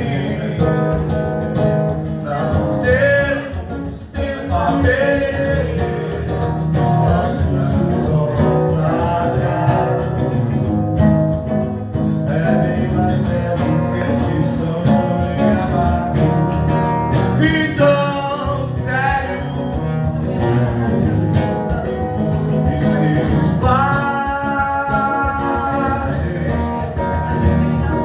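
Live forró band playing a song with singing, over a steady beat.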